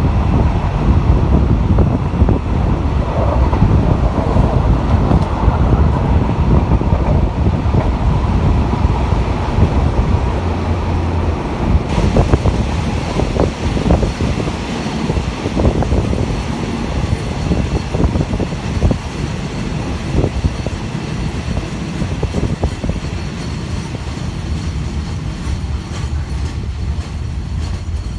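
RHN diesel railcar train running, heard from an open carriage window: a steady rumble of wheels and engine with wind noise. From about halfway on, a run of sharp clicks as the wheels pass over rail joints and points, and the sound slowly grows quieter.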